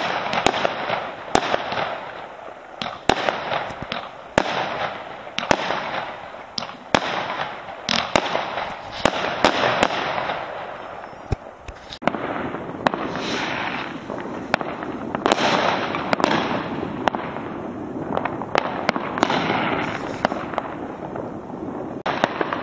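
Aerial fireworks going off: many sharp bangs of shells bursting, often more than one a second, over a crackling haze. From about halfway the single bangs thin out and a denser, steadier crackle takes over.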